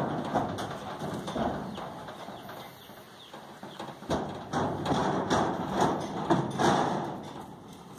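Horse's hooves thudding on a stock trailer's wooden floor as it is led out, in irregular heavy steps, with a cluster of louder thumps in the second half as it steps down out of the trailer.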